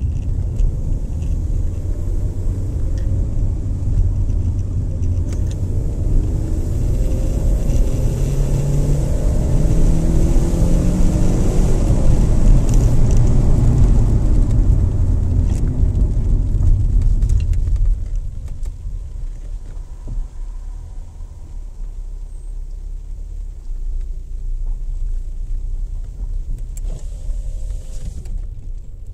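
Car driving on a rough road, heard from inside the cabin: engine and tyre rumble. The engine climbs in pitch as the car speeds up through the middle, then the sound drops off sharply about two-thirds of the way in, leaving a quieter rumble.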